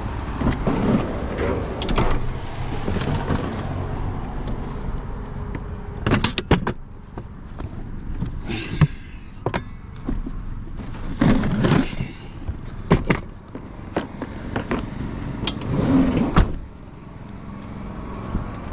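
Scattered knocks and clanks of tools and wheel parts being handled during a car tire change, in irregular clusters over a low rumble.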